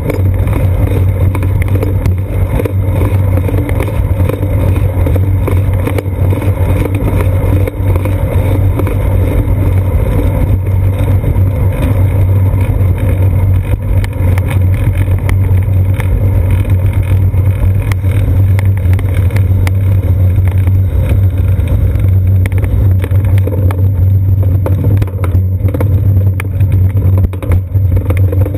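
Steady low rumble of road vibration and wind picked up by a GoPro Hero 2 mounted on a bicycle's seat post while riding along a concrete sidewalk, with small clicks and knocks from the bumps throughout.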